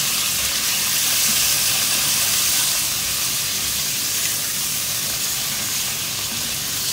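Raw chicken pieces sizzling in hot oil in an aluminium karahi as a wooden spatula stirs them, searing until their colour changes: a steady hiss.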